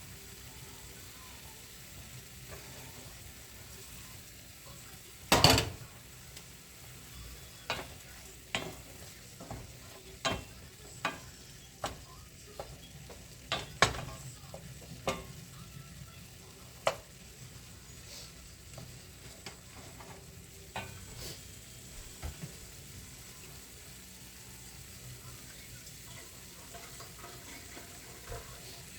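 Food sizzling in a pan while being stirred, with a run of sharp knocks of the utensil against the pan from about five to seventeen seconds in, the first the loudest, then a few scattered taps.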